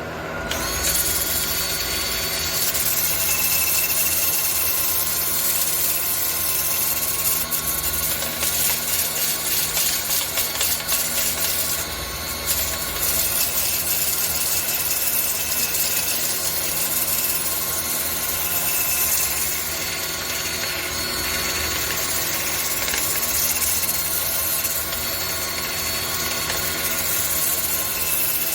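A wood lathe running with a steady motor whine while the spinning red cedar blank is worked, giving a dense scraping hiss over the hum.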